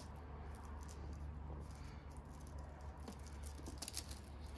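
Faint scattered ticks and light scrapes of fingers handling a plastic car emblem and its tape against the painted boot lid, over a steady low hum.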